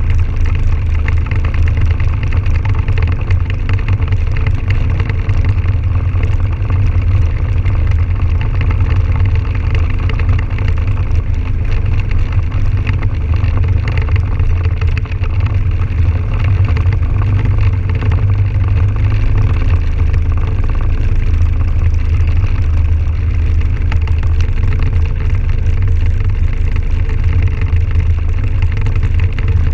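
Can-Am Outlander 1000 XT-P ATV's V-twin engine running at a steady speed as the quad rides along, a deep low rumble that holds even with no revving.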